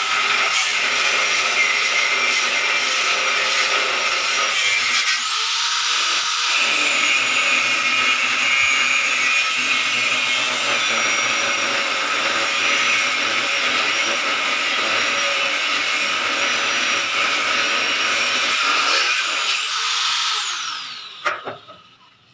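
Handheld electric disc sander running steadily as it strips paint from a wooden gate, a high motor whine over the rasp of the disc on the wood. Near the end the motor winds down and stops.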